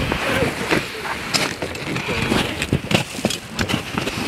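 Footsteps on glacier ice: a string of irregular steps, with scuffing and rustle from a camera carried by the walker.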